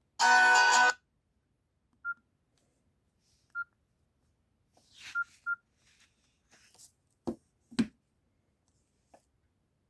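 Nokia C5-00 mobile phone: a ringtone plays for under a second and is cut off. Four short single-pitch keypad beeps follow, the last two close together, then two sharp clicks near the end.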